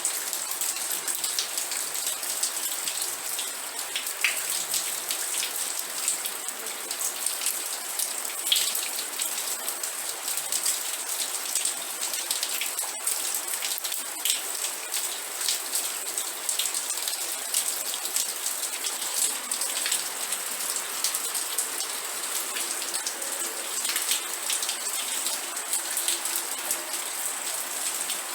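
Steady rain falling, with a constant high hiss and many close drops pattering onto a surface.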